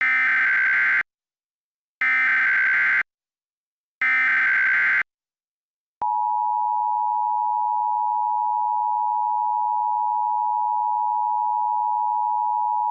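Emergency Alert System SAME header: three one-second bursts of screeching digital data tones, each followed by a second of silence. About six seconds in, the EAS two-tone attention signal (853 and 960 Hz) starts as a long, steady, shrill tone.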